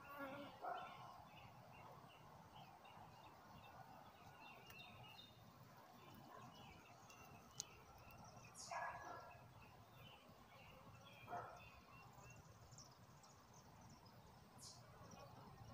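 Near silence: faint outdoor ambience with distant birds chirping now and then, and two brief louder sounds a little past the middle.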